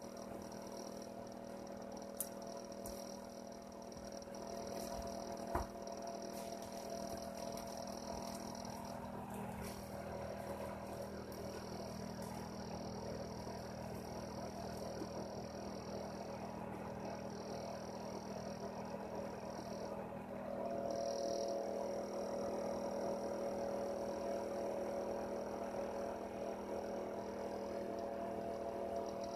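A heater running with a steady hum of several level tones, two faint clicks in the first few seconds, and the sound growing a little louder about two-thirds of the way through.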